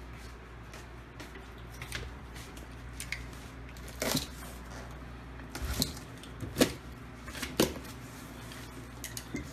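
Scattered knocks, taps and scrapes of a cardboard shipping box and its loose contents being handled and opened, over a low steady hum.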